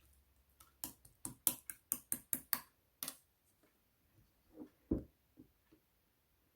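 Slime being pressed and worked by hand: a quick run of about ten sharp, crisp clicking pops over two and a half seconds, then a few softer, lower squishes.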